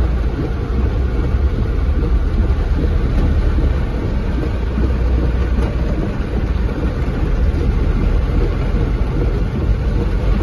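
Steady low rumble heard inside a car's cabin as it drives through heavy rain and standing water, with rain beating on the roof and windscreen over it.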